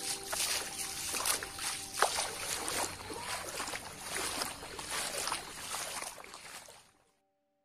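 Floodwater sloshing and trickling, an irregular splashy hiss with many small splashes. It fades out about seven seconds in.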